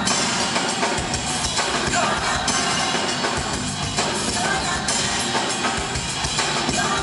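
Live R&B band music played loud through a hall's sound system: drum kit keeping a steady beat under the band, with a little singing.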